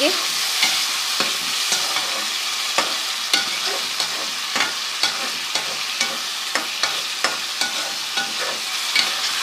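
Diced potatoes and chopped tomatoes sizzling as they fry in oil with onion and ginger-garlic paste, while a spoon stirs and scrapes against the pan in irregular clicks.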